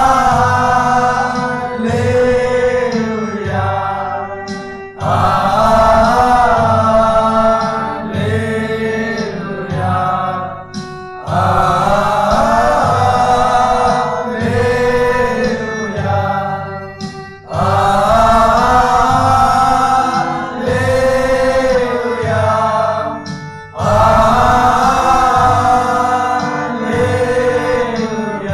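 A group of men singing a Christian worship song together to electronic keyboard accompaniment with a steady beat. The song comes in repeated sung phrases about six seconds long.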